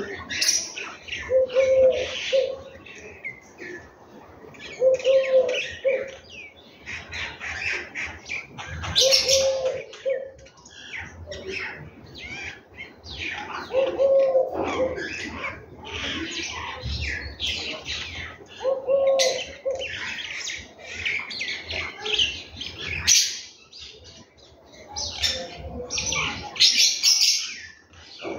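A chorus of small birds chirping and twittering, many calls overlapping, with a lower short call coming back every few seconds.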